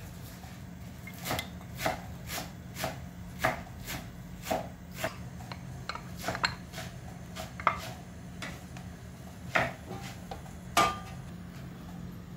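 Cooking fat spitting and popping as it melts in a hot nonstick pan: sharp, irregular pops about once a second, a few of them louder, over a steady low hum.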